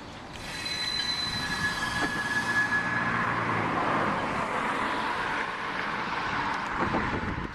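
Railroad cars rolling through the yard, starting up loudly about half a second in, with steel wheels squealing high on the rails over a steady rolling rumble.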